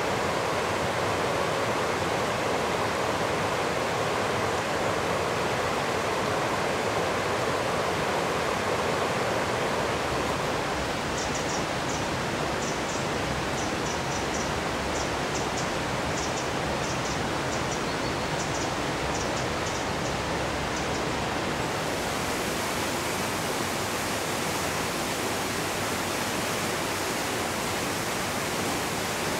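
Water rushing over rocks in a steady, unbroken hiss. Between about 10 and 22 seconds it turns duller, with faint high ticks scattered through it. From about 22 seconds it changes to the brighter, fuller rush of a waterfall.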